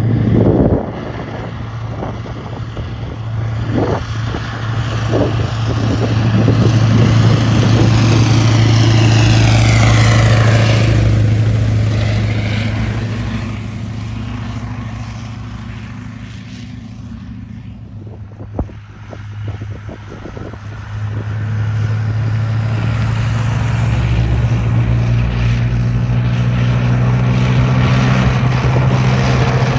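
Tracked armoured vehicles, among them a Warrior infantry fighting vehicle, driving past with a steady deep diesel drone and the rattle of their tracks. The sound is loudest around ten seconds in, with a falling whine as a vehicle goes by. It fades around eighteen seconds, then builds again as the next vehicle approaches.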